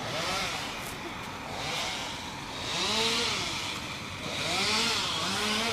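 A chainsaw revving up and dropping back several times while cutting wood, loudest about halfway through and near the end.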